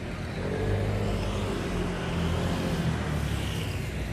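A car engine running close by as a vehicle moves past, its sound swelling about half a second in and easing off near the end.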